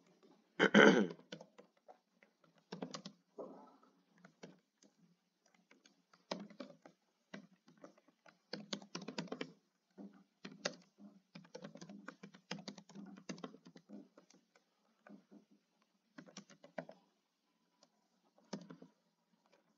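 Computer keyboard typing: irregular runs of keystrokes with short pauses between them, the loudest burst about a second in.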